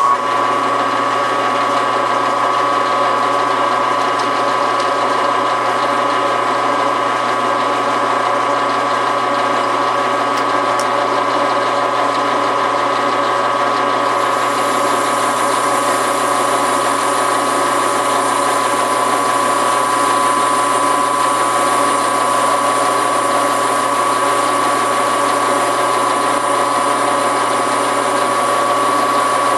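Metal lathe switched on and running steadily, its gear train giving a whine, as a cutting pass is taken off the end of a metal spacer bushing. About halfway in, a high hiss joins the sound.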